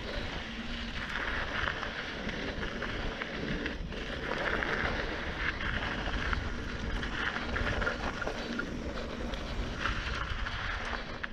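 Mountain bike rolling fast over a dry dirt trail: a steady crackling hiss from the tyres on loose dirt and gravel, with wind rumbling on the microphone.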